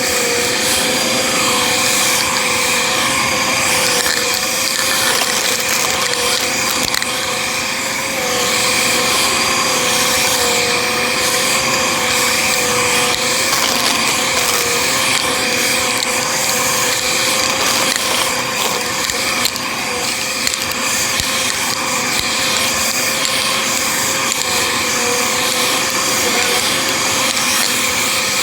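Bissell vacuum cleaner running steadily with a constant motor whine, crackling as it sucks up foil confetti.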